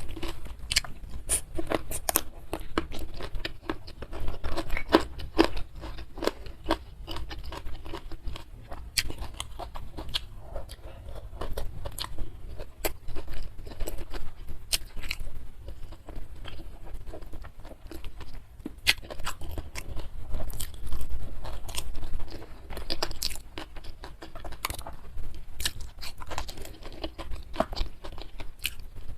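Close-miked eating: a person chewing and biting crunchy food, with a dense, irregular run of sharp crunches and wet chewing sounds.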